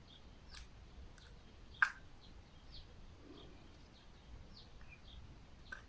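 A few small clicks from handling a compact action camera and its battery while trying to fit the battery, the loudest about two seconds in. Faint, scattered bird chirps sound in the background.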